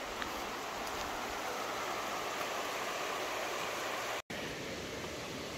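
Steady rushing of a mountain stream, an even hiss of flowing water, broken by a split-second dropout about four seconds in.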